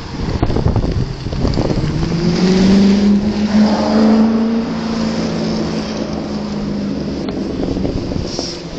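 Cars passing through an intersection. One engine rises slightly in pitch as it pulls away, then holds a steady note that peaks and slowly fades. Wind buffets the microphone at the start.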